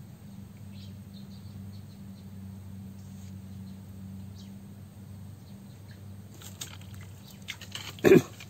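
A fish striking and being yanked out of a weedy ditch: rustling, then a loud splash about a second before the end. Before it, a steady low hum with a few faint bird chirps.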